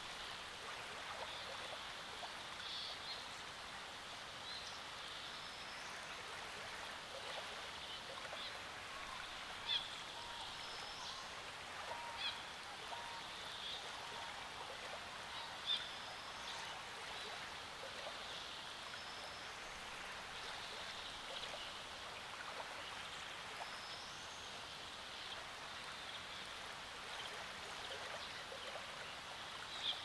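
Small waves lapping softly at the reedy lakeshore, a steady gentle water sound, with small birds chirping faintly in the background. Three brief louder clicks stand out near the middle.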